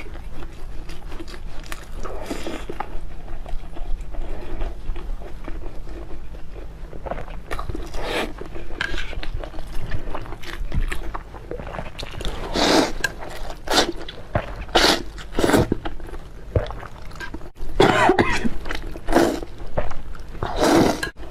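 Close-miked eating sounds: a person chewing and biting food, with many short sharp noises and several louder bursts in the second half.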